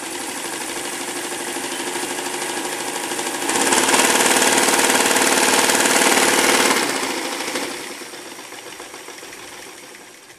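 Vintage Sears Kenmore sewing machine running steadily, getting louder about three and a half seconds in, then quietening and stopping near the end.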